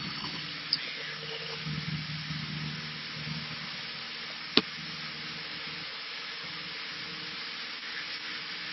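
Steady cabin noise of a Cessna 152 in flight: an even hiss with a low steady hum from its four-cylinder engine and propeller. One sharp click about four and a half seconds in.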